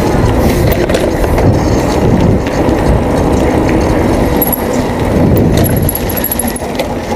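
Wind buffeting the camera microphone on a moving bicycle: a loud, unbroken low rumble.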